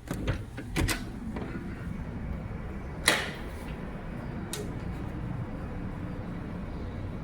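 Clicks and knocks of laundromat machine doors or parts, with a loud sharp click about three seconds in, over a steady low machine hum that sets in after about a second and a half.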